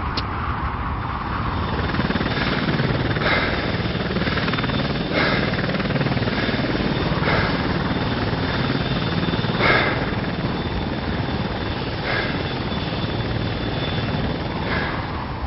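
Helicopter flying overhead: a steady rotor and engine rumble that swells about two seconds in and fades near the end, with short brighter swells every two seconds or so.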